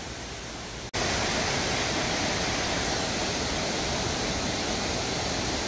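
Steady rushing of river water, a noise with no distinct events. About a second in it cuts out for an instant and comes back louder.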